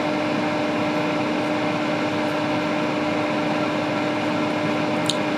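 Steady whir of a fan-driven bench tool with a constant low hum, unchanging throughout; a faint click near the end.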